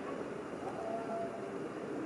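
Steady rumble of a train running, with a faint brief squeal a little under a second in.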